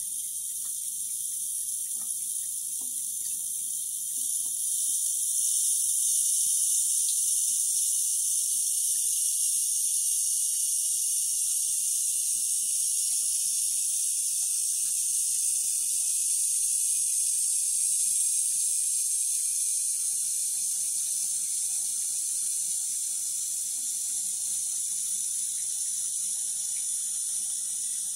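Thin stream of tap water running from a bathroom mixer faucet into a ceramic sink: a steady high hiss that barely changes.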